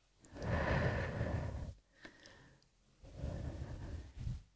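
A person breathing audibly: two slow, breathy breaths, one near the start and one about three seconds later.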